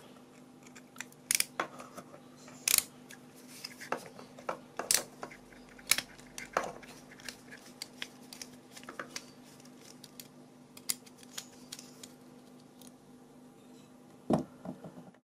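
Small precision screwdriver turning the tiny retaining screw of a circuit-board module, with fingers handling the board: a scatter of irregular light clicks and metallic taps over a faint steady hum.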